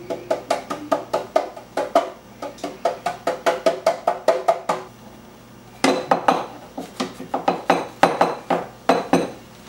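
A metal loaf pan being tapped by hand in quick, even taps, about four or five a second, for several seconds; after a short pause it is knocked down repeatedly against a wooden counter, louder and less evenly.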